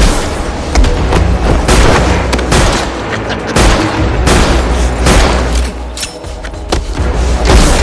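Film action sound effects: rapid bursts of gunfire and heavy impacts, several a second, with music underneath.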